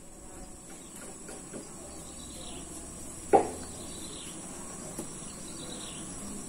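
Steady high-pitched insect chirring in the background, with one short knock about halfway through.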